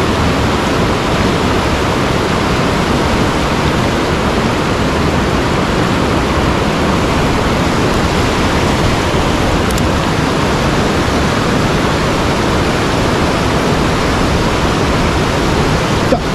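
Loud, steady rush of water from a mountain headwater stream.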